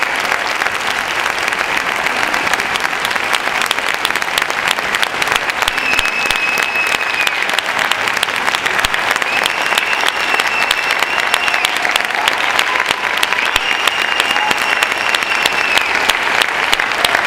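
An audience applauding: many hands clapping together without letting up.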